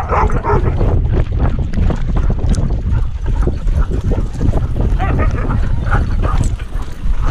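Wind buffeting and rumble on a camera harness worn by a running husky, with knocks and jostling from its stride.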